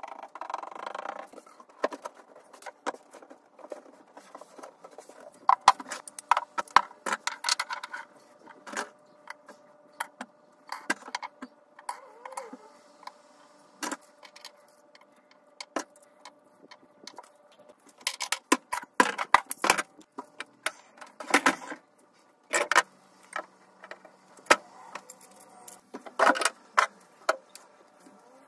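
Small hard objects being handled, giving irregular light clicks and clinks that come in clusters, with quieter gaps between them.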